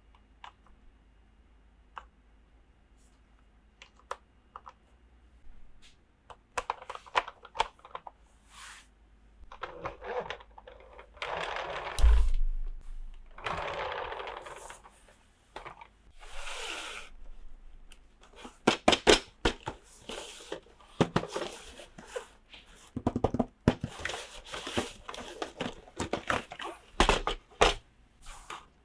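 Plastic toy pieces and packaging being handled: scattered clicks and taps, stretches of rustling, and one loud thunk about twelve seconds in, then a busy run of clicking and rattling near the end.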